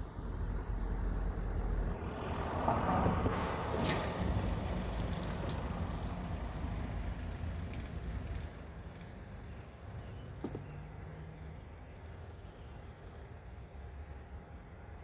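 Outdoor traffic ambience: a road vehicle passes, loudest about three seconds in, then fades to a low steady rumble. A faint, fast, high-pitched pulsing comes in near the end.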